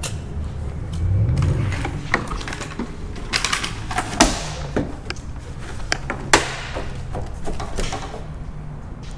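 A pry bar working a car's rear wing spoiler loose from the trunk lid: irregular clicks, knocks and scraping of metal against plastic clips and bodywork, with a few louder knocks around the middle, over a steady low hum.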